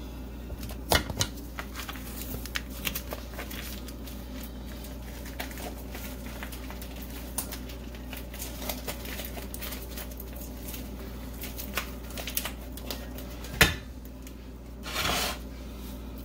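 Plastic packaging of ready-made barbecue ribs crinkling and crackling in gloved hands as the ribs are tipped into a glass casserole dish, with a sharp knock about 13 seconds in and a short squelching rush about 15 seconds in as the leftover sauce is squeezed from the package.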